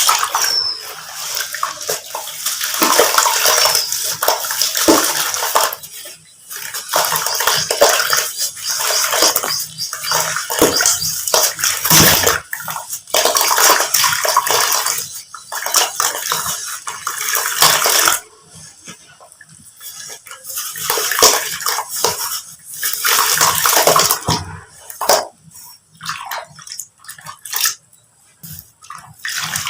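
Chunks of dry sand-cement crumbling and breaking up, a dense gritty crackling that comes in long bursts with short pauses, then grows sparser and quieter in the last third.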